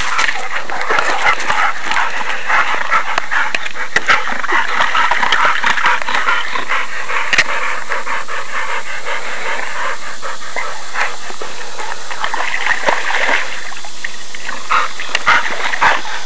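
A black Labrador retriever splashing and sloshing through the water of a plastic kiddie pool, panting, with a steady jumble of splashes and small clicks.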